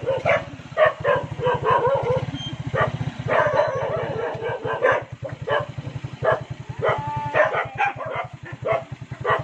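A dog barking over and over in short, sharp barks, over the steady putter of a small engine running.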